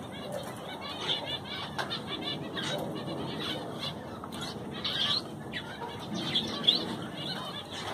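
Many small birds chirping at once, a steady flurry of short overlapping calls, with one louder sharp chirp about two-thirds of the way through.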